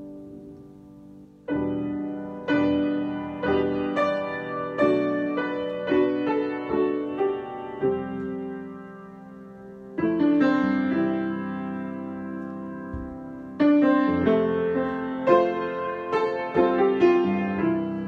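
Grand piano played solo in a free improvisation: chords and melody notes struck in phrases that ring and fade. A new phrase starts about a second and a half in, another about ten seconds in, and a third, busier one a little before the end.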